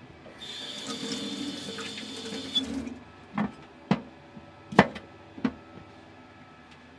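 Kitchen tap running into a stainless steel sink for about two and a half seconds while a Japanese green onion is rinsed, then shut off. Then come four sharp knocks as the onion is handled on the wooden cutting board. The third knock is the loudest.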